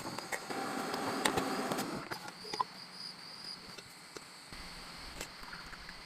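Rustling with light clicks for about a second and a half near the start, over a steady high insect chirp, with scattered small clicks afterwards.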